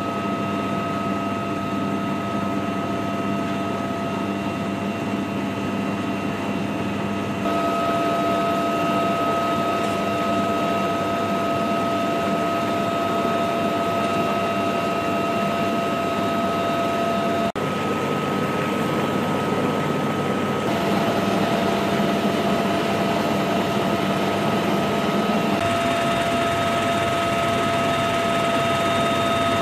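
UH-1Y Venom helicopter's twin turboshaft engines and rotor running, heard inside the cabin: a steady high whine over a constant rush of noise. The tone shifts slightly a few times.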